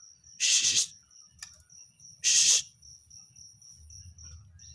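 White-rumped shama giving two short, harsh rasping calls about two seconds apart, over a steady high insect trill.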